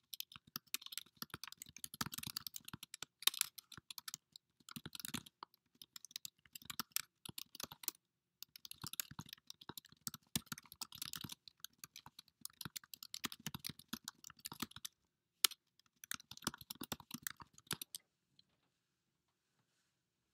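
Typing on a computer keyboard: quick runs of keystrokes in bursts with short pauses between them, stopping a couple of seconds before the end.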